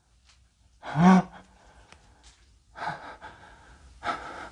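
A person's short voiced gasp about a second in, followed by two breathy exhales near the end.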